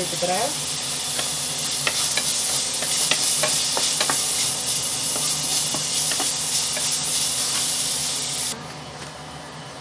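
Chopped onions sautéing in a nonstick kadai: a steady sizzle with the scrape and tap of a spatula stirring them. The sizzle drops away suddenly near the end.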